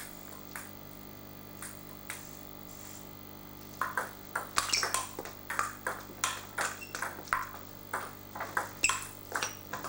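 Table tennis ball clicking off bats and the table. A few single taps come first, then about four seconds in a fast rally starts with rapid clicks several times a second.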